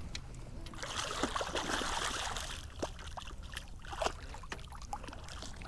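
Water splashing and sloshing beside a kayak as a hooked redfish is played, with scattered light clicks and knocks.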